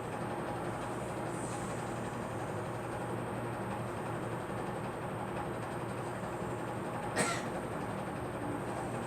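A steady mechanical hum, with one short cough a little over seven seconds in.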